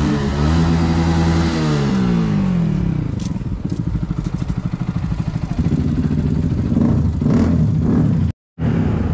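Motorcycle engines running, with one held at a rev that then falls back to idle about two seconds in, followed by steady fast engine pulsing.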